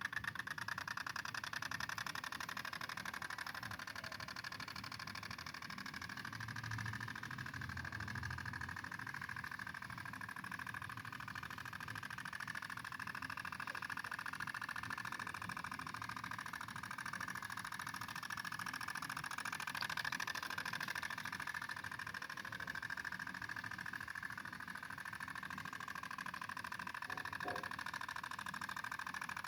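Small two-stroke engine of a G1000 mini tiller running steadily while tilling soil, its buzzing pitch wavering slightly.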